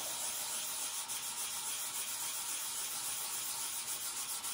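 Brass wax seal stamp being rubbed by hand on wet 400-grit wet/dry sandpaper: a steady, gritty hiss of wet sanding, deburring the laser-engraved metal.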